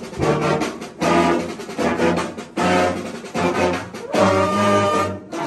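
Pep band of brass and saxophones playing a tune in short phrases, with sousaphones carrying the low notes.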